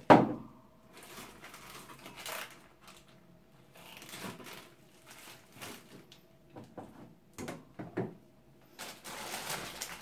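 Bagged frozen food being handled in a freezer drawer: plastic rustling and crinkling with scattered knocks against the drawer, a sharp knock right at the start and a longer crinkling stretch near the end. A faint steady hum runs underneath.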